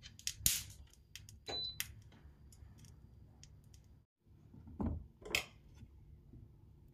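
Scattered light clicks and rustles of a plastic-wrapped food package being handled, then two knocks about five seconds in as food is set on a plastic cutting board.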